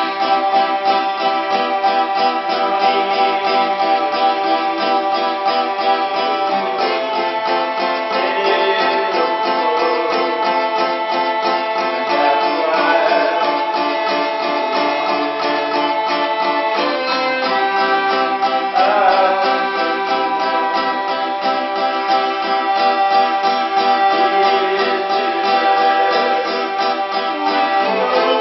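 Hurdy-gurdy and strummed acoustic guitar playing together, the hurdy-gurdy's drone strings holding steady tones under the tune. The harmony shifts twice, about a quarter of the way in and again a little past halfway.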